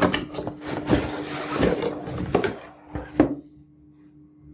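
Cardboard camera packaging being handled and unpacked: a few sharp knocks of the box on a wooden table with scraping and rustling between them, stopping a little past three seconds in.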